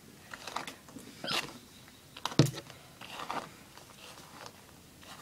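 Hairbrush strokes through a doll's synthetic hair: a run of short, irregular scratchy swishes, with one sharper knock about two and a half seconds in.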